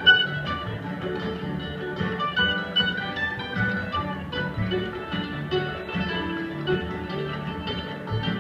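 Bluegrass band playing live: fiddle, mandolin and acoustic guitar picking over upright bass.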